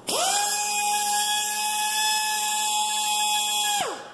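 Air-powered die grinder spinning up to a steady high whine, running free for about three and a half seconds without cutting, then winding down near the end.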